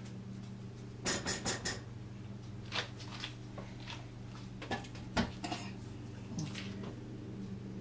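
Light clinks and knocks of kitchenware: a quick run of four about a second in, then a few scattered single ones. A steady low hum runs underneath.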